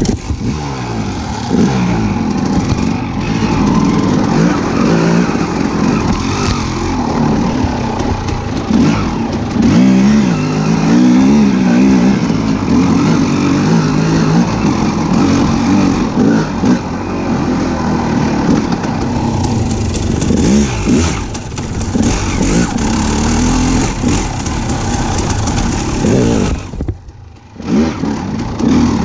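A vehicle engine running, its pitch rising and falling with changing revs.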